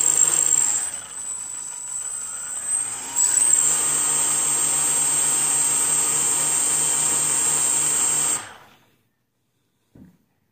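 A quadcopter's four brushless motors spin propellers on the bench, throttled through Emax Simon 12A speed controllers by a servo tester, running with a high steady whine. The motors ease back after about a second and step up louder at about three seconds, then spin down and stop near the end, followed by a brief faint tap.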